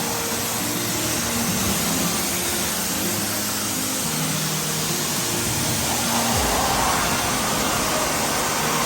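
High-pressure washer spraying water, a steady hiss of spray. About six seconds in the spray gets louder and harsher.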